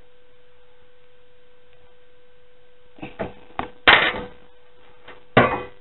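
Low steady hum, then from about three seconds in a run of sharp clicks and knocks, the loudest about four seconds in and another near the end: hands handling the motherboard and its screws inside a metal computer case.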